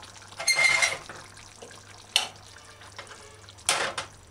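A metal spoon stirring and scooping thick stew gravy in a stainless steel saucepan, giving three short bursts of wet sloshing and spoon-on-pot scraping and clinking. The bursts come about half a second in, just after two seconds as a sharp click, and near the end.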